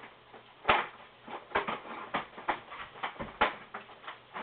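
Handling noise: irregular clicks, knocks and light rustles of objects being moved about and set down, about a dozen short sounds, the sharpest a knock just under a second in.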